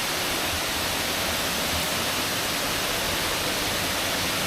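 Waterfall's rushing water, a steady, even noise with no breaks.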